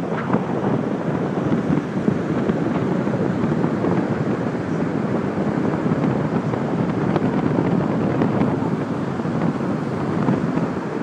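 Ocean surf: waves breaking and foamy wash running up a pebbly beach in a steady rush, with wind rumbling on the microphone.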